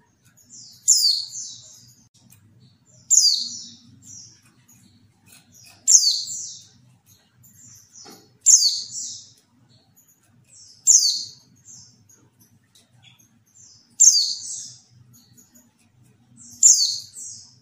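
Female white-eye (pleci) giving short, high chirping calls, seven in a row about every two and a half seconds, each opening with a quick downward sweep. It is a female call used as a lure to make male white-eyes answer and sing.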